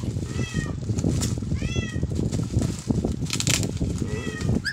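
Plastic shipping pouch crinkling and rustling as it is cut and pulled open with a utility knife, with a loud crackle about three seconds in. A cat meows three times over it, short high calls that rise and fall in pitch.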